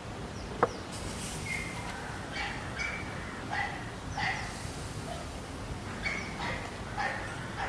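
A dog barking: a string of short barks over a steady background hiss, with one sharp click shortly before the barking starts.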